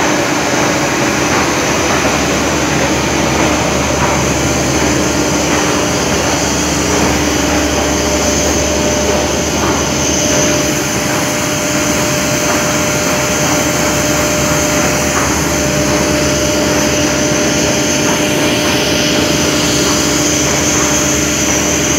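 Large cooling fans of an air-cooled steam condenser running at a power plant, with the plant's machinery noise around them. It is a loud, steady, even noise with a constant low hum and a high whine, unchanged throughout.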